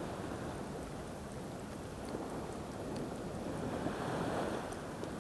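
Calm sea water lapping and washing steadily, with light wind on the microphone.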